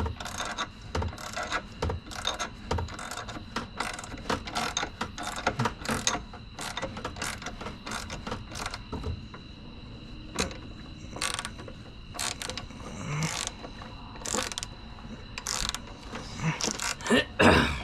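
Hand socket ratchet clicking in runs as a bolt is turned out, with short pauses between strokes.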